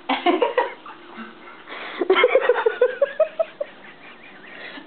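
A person laughing: a short burst at the start, then from about two seconds in a quick run of chuckles stepping up in pitch.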